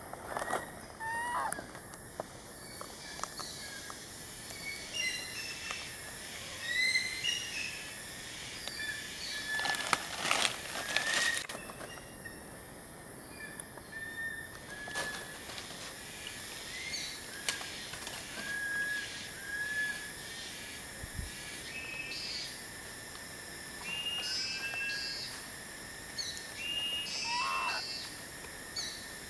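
Short, high chirping calls repeat on and off throughout, over outdoor background hiss, with a brief burst of rustling about ten seconds in.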